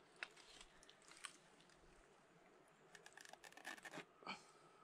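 Near silence, with a few faint scattered clicks and crackles.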